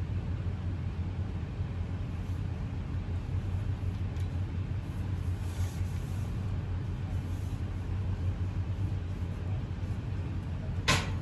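Steady low rumble, with a couple of sharp knocks near the end.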